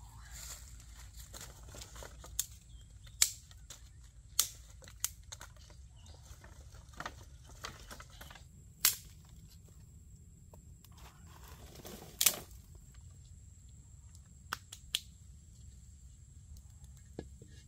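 Dry sticks and twigs knocking and snapping in a dozen or so sharp, separate clacks as firewood is picked up and laid for a cooking fire, with a faint steady high-pitched hum underneath.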